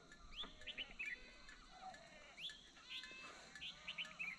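Faint outdoor ambience with many short, high, rising chirps scattered throughout, like small birds calling.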